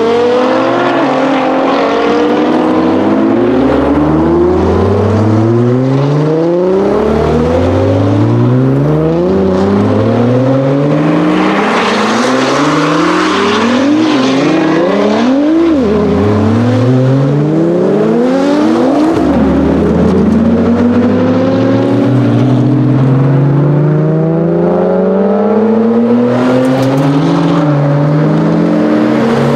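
Nissan GT-Rs accelerating hard away one after another. Each engine note climbs steeply, drops back at a quick upshift and climbs again, with the cars overlapping. Mostly R35 GT-Rs with twin-turbo V6 engines, and an R33 Skyline GT-R near the end.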